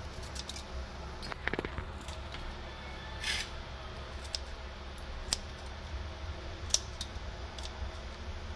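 Kitchen scissors snipping through raw shrimp shells as the heads, antennae and legs are trimmed off: a string of sharp snips at irregular intervals. A low steady hum sits underneath.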